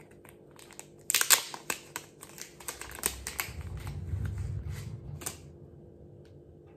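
A plastic packet of fishing hooks crinkling and clicking as it is opened and a hook is picked out. The rustle starts about a second in and stops a little after five seconds.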